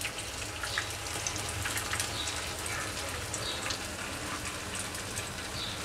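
Batter-coated broccoli florets deep-frying in hot oil in a frying pan: a steady sizzle with scattered small crackles and pops.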